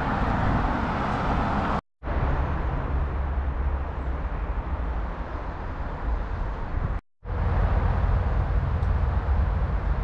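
Steady outdoor city ambience: an even low rumble with no distinct events, cut off twice by a split second of silence.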